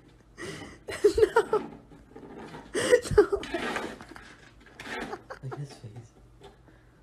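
A person laughing in short repeated bursts, twice in quick succession, with a weaker burst of laughter or voice about five seconds in.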